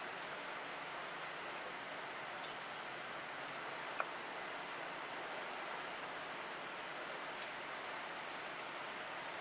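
Northern cardinal giving sharp, high chip calls, about one a second, over a steady background hiss.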